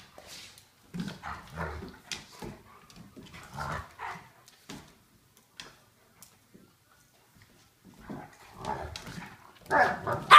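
A Golden Retriever puppy and a German Shepherd/Tamaskan mix play-fighting, giving short bursts of dog vocal noises, the loudest near the end.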